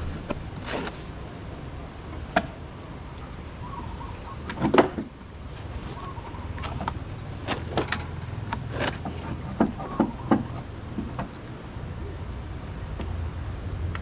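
Old hardened patch material being cracked and torn off a wooden boat hull by hand: scattered sharp cracks and snaps, loudest about five seconds in, with a quicker run of them a couple of seconds later, over a low steady hum.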